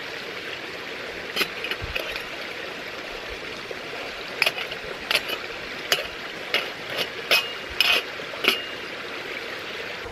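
Titanium folding spork clicking and clinking against a titanium mug and its lid: about ten sharp metallic clinks, a few ringing briefly, over a steady hiss from the gas stove burning under the mug.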